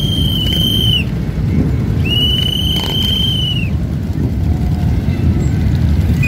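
Many motorcycle engines idling together in a steady low rumble. Two long, shrill whistle blasts of about a second and a half each sound over it, the second about two seconds after the first.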